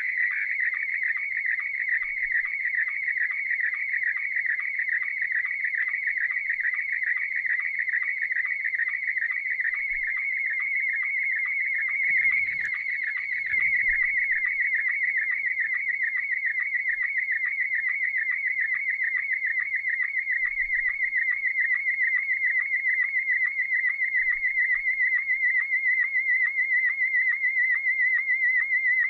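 Slow-scan television (SSTV) signal in Scottie S1 mode: a high warbling tone that shifts pitch with the picture, broken by a short regular sync blip a little over twice a second, one per image line. It is a reply image coming in and being decoded line by line.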